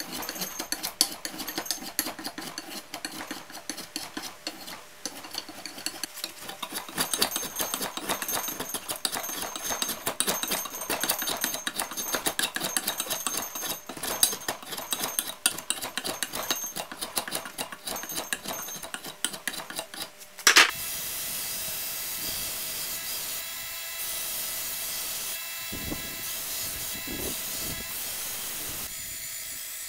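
Hand tools working a wooden axe handle: quick, rapid scraping strokes of a file and a shaving blade along the wood. About two-thirds through, a belt grinder starts with a sharp jolt and runs with a steady whine as the handle is sanded against the belt.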